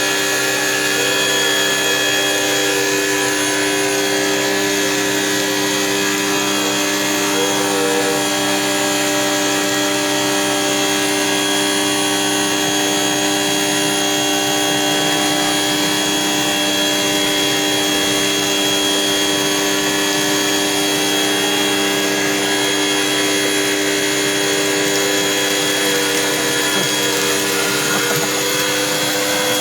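Power tool's electric motor running steadily at constant speed, an unbroken whine that holds several steady pitches.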